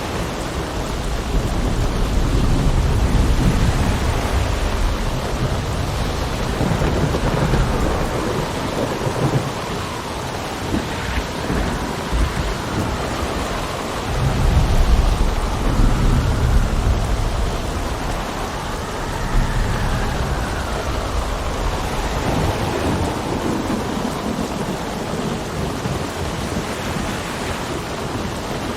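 Sea storm: a steady, loud rush of rain and wind with deep rumbles that swell twice, near the start and about halfway through, and a faint whistle rising and falling in the middle.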